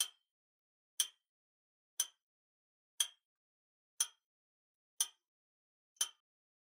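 Clock-tick sound effect counting down the thinking time: one short, sharp, slightly ringing tick each second, seven in all, stopping near the end.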